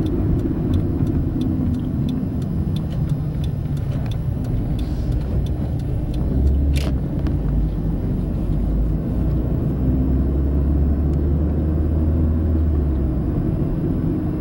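Car engine and road noise heard from inside the moving car: a steady low rumble, with a single sharp click about seven seconds in.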